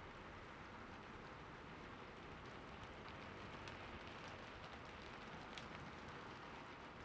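Steady soft rainfall, a faint even hiss with scattered drop ticks through the middle.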